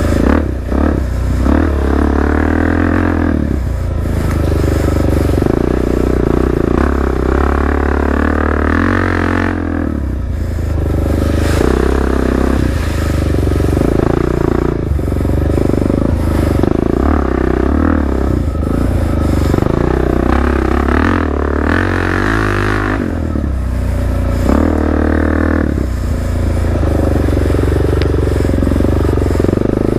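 Suzuki DR-Z400's single-cylinder four-stroke engine through a Black Widow aftermarket exhaust, the dirt bike under way with the revs rising and falling. The throttle eases off briefly about ten seconds in and again a little before the two-thirds mark. Wind noise on the microphone throughout.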